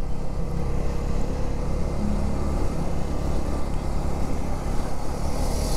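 Bajaj Dominar 250's single-cylinder engine running steadily at cruising speed, with wind and road noise over it. A hiss rises near the end.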